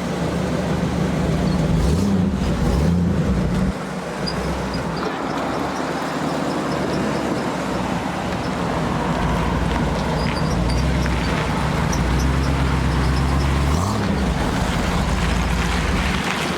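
Motor vehicle engine running under steady road or traffic noise, its note rising briefly near the end.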